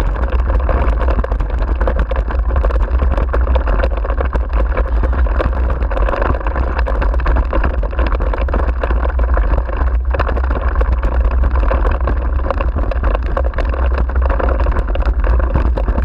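Dryland dog rig rolling fast over a rough grass track, its wheels and frame rattling continuously, over a steady low wind rumble on the handlebar camera's microphone.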